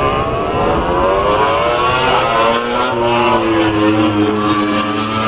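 A motor vehicle engine revving, its pitch climbing over the first two seconds and then settling lower and steadier, loud throughout. It starts and cuts off abruptly.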